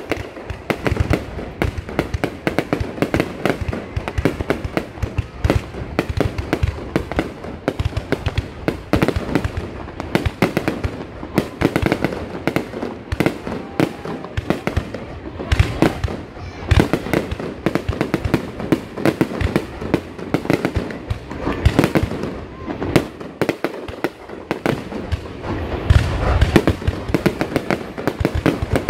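Aerial fireworks shells bursting in a continuous barrage, many bangs a second with no break, with a heavier deep boom near the end.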